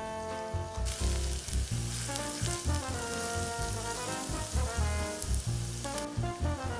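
Minced garlic sizzling in hot oil in a clay pot. The sizzle starts suddenly about a second in and cuts off near the end, under background music with a steady bass.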